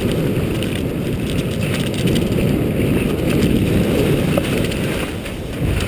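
Wind buffeting the microphone while skiing downhill, with skis scraping and hissing over slushy snow; a steady, loud rumble with a few small ticks.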